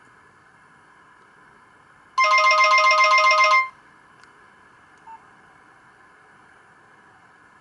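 Nokia 2865i phone ringtone: one burst of a fast-trilling electronic ring lasting about a second and a half, starting about two seconds in, with faint hiss in the pauses around it.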